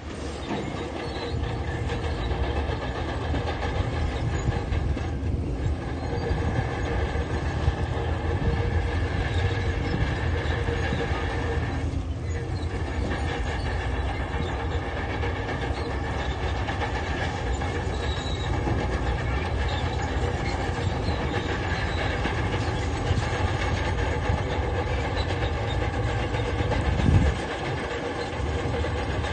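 Diesel engine and steel crawler tracks of a heavy tracked machine working, a steady engine drone with a constant whine over the clatter of the tracks. A single heavy knock comes near the end.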